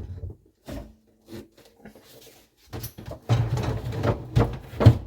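Handling clatter as the RC boat and its parts are moved aside: a few separate knocks, then a run of heavier bumps and clunks in the second half, the loudest near the end.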